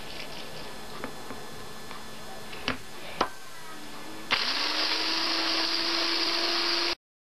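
Two sharp knocks about half a second apart. Then, about four seconds in, a Maxwell electric hand blender with a whisk attachment switches on, whines briefly as it spins up, and runs steadily, whisking eggs and milk in a plastic bowl.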